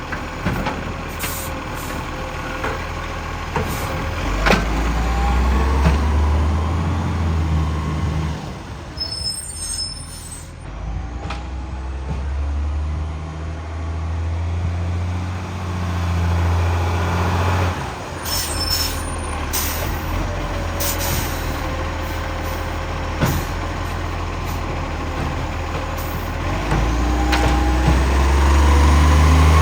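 Garbage truck's diesel engine running with a loud exhaust leak, revving up in three surges and dropping back to a lower drone between them. Two brief high squeals come about a third and about two thirds of the way through.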